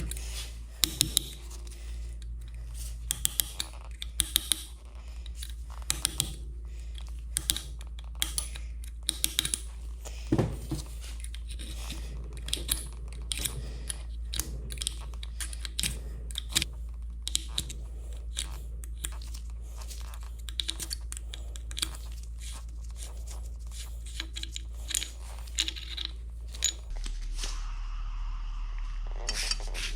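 Irregular clicks and clinks of hand tools and metal parts being handled while a Bridgeport mill head is taken apart, over a steady low hum. Near the end the background changes to a steady hiss.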